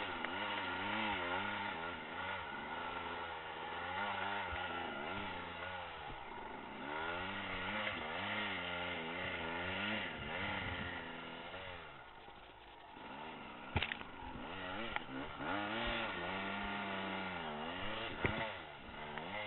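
Dirt bike engine revving up and down over and over as the throttle is worked on and off, easing to a lower, quieter run about two-thirds through. A sharp clack comes just after that.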